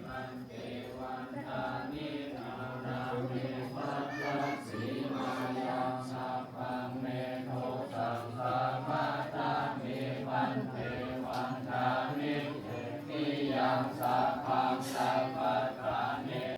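Buddhist monks chanting together in unison on a low, steady pitch, in an even syllable rhythm.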